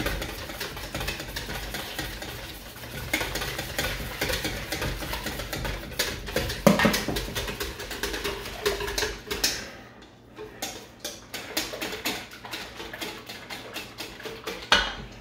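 Wire whisk beating runny crepe batter in a bowl: a fast, continuous clicking and ticking of the whisk against the bowl, with a louder knock about seven seconds in.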